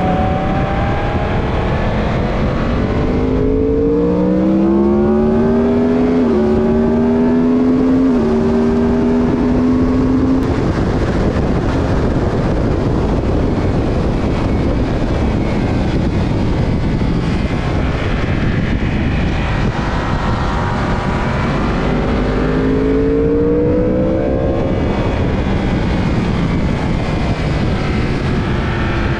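Onboard sound of a racing motorcycle at speed on a circuit: heavy wind rush over the engine note. The engine accelerates hard, its pitch climbing, dropping at each of two quick upshifts and climbing again, then eases; near the end it pulls up in pitch once more.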